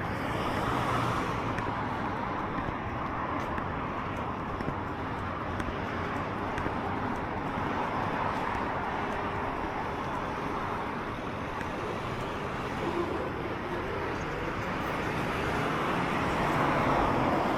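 Road traffic going by on a city street: a steady hiss of tyres and engines, swelling as vehicles pass about a second in, midway and near the end, over a low rumble.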